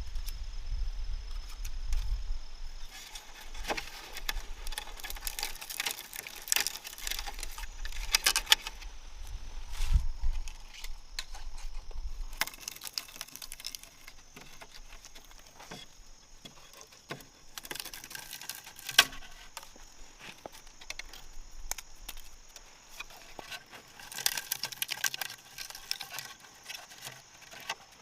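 Irregular clicks, taps and rattling from hand work with small hard objects, thicker in bursts, over a low rumble that stops about halfway through.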